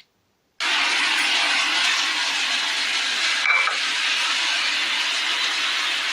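A steady hiss, with a half-second of dead silence at the very start.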